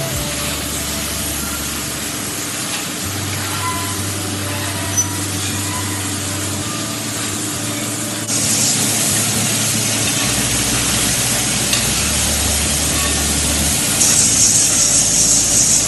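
Factory machinery noise: a steady hiss over a low hum, stepping louder about 8 seconds in and again near the end.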